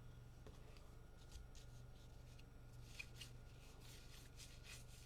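Faint rustling of Topps Heritage Minor League baseball cards being slid and flipped one behind another in the hand, in irregular soft strokes over a low steady hum.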